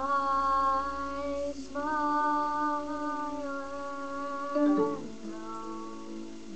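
A girl singing alone, holding long sustained notes, with a slide in pitch a little under five seconds in before softer held notes.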